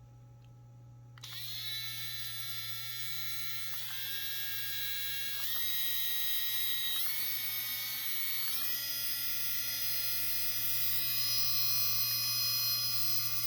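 Cordless five-speed mini rotary tool (DM-241 engraving pen) switching on about a second in and running with a steady whine. The whine steps up in pitch four times, about every one and a half seconds, as it is switched up through its speeds.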